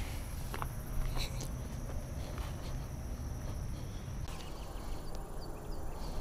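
Insects trilling steadily in a high continuous drone, over a low outdoor rumble, with scattered footsteps on dry ground. About four seconds in, the sound cuts to a quieter background with the insect drone gone.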